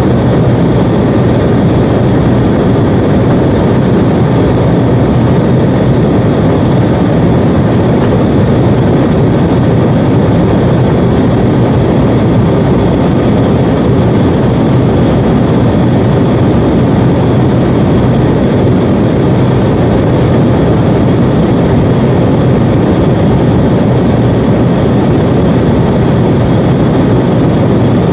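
Steady cabin noise of a jet airliner at cruise altitude: engine and rushing-air noise heard from inside the cabin, with a low hum beneath it.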